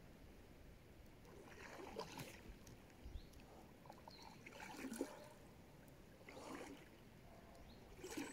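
Faint kayak paddle strokes: the blades dip and swish through the water about four times, a couple of seconds apart.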